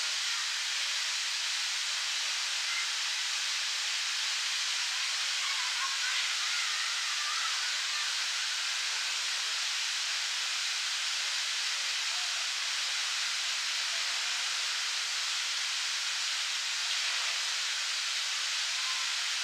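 Large park fountain jet spraying and splashing into its basin: a steady, even rushing hiss.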